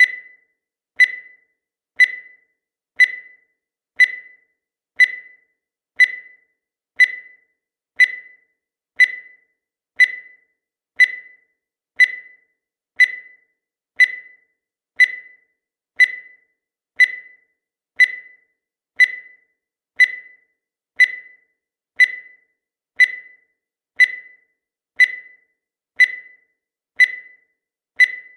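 Countdown timer beep: one short, high electronic beep every second, each fading away quickly, in an even steady rhythm.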